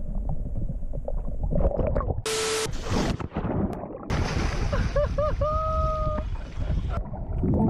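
Water gurgling and sloshing, heard from a camera at or under the surface, then a person splashing in the river. About five seconds in there are a few short whoops and then one long held whoop.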